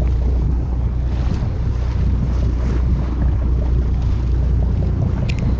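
Sportfishing boat's engine running at a steady idle, a low hum under wind and sea noise, with two small clicks near the end.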